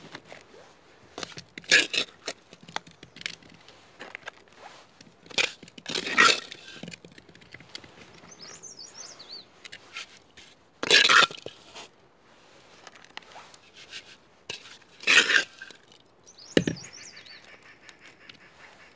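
Hand trowel scraping up soil and tipping it into a plastic plant pot: several short scrapes and rushes of falling soil, a few seconds apart.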